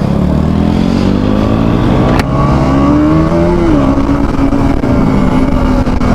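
KTM Duke 200's single-cylinder engine under way. It accelerates with rising pitch, drops sharply about two-thirds of the way through as it shifts up, then runs steady. A single sharp click comes about two seconds in.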